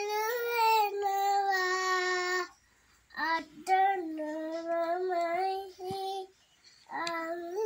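A young girl singing in long, held notes, in three phrases separated by short breaths.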